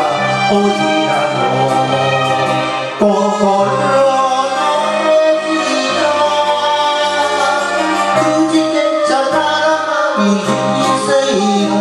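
A man singing an enka song into a karaoke microphone over its recorded instrumental backing track.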